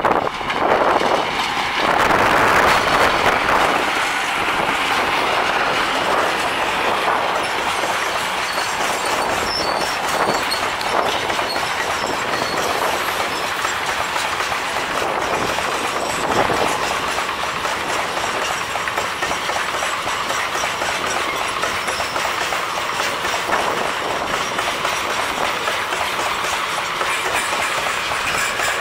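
A long freight train of open wagons rolling past: a steady rumble of steel wheels on rail, with clickety-clack as the wheels cross the rail joints. It is loudest in the first few seconds, then settles to an even roll.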